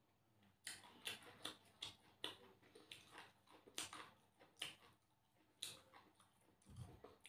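Faint close-up eating sounds: a string of short, wet clicks and smacks, about two a second, as rice is mixed and eaten by hand. They start under a second in, pause about six seconds in, and one more comes near the end.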